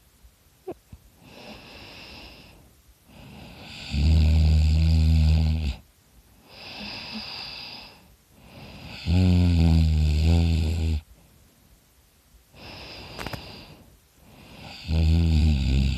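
A person snoring loudly in sleep: three loud, low snores about five seconds apart, with softer airy breaths between them. The third snore starts near the end.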